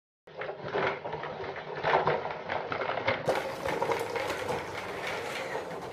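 Small plastic toy wagon rattling and clattering as it rolls on a tile floor, a busy run of small knocks and clicks.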